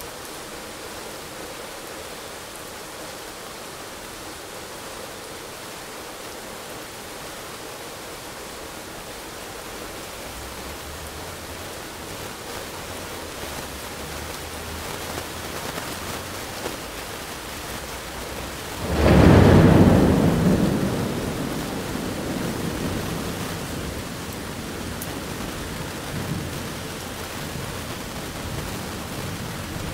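Steady heavy rain with thunder: a low rumble builds from about ten seconds in, then a loud thunderclap just past the middle rolls away over a few seconds, with more rumbling near the end.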